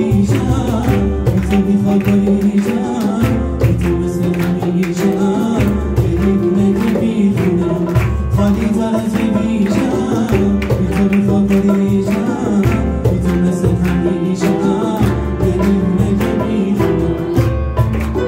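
A male voice singing a Persian pop ballad live, accompanied by grand piano and hand percussion on congas and timbales.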